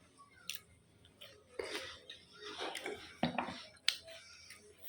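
Someone chewing biscuits with butter, in short irregular bites, with a few light clicks.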